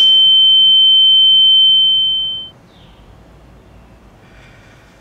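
A loud, steady, high-pitched pure electronic tone, held and then fading out about two and a half seconds in. Afterwards there is only a quiet background with a couple of faint bird chirps.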